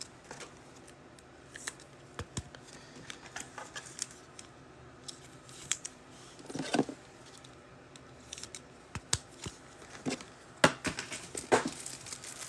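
Trading cards and pack wrappers being handled: scattered light clicks and soft rustles, with a few louder rustles about two thirds of the way through and near the end.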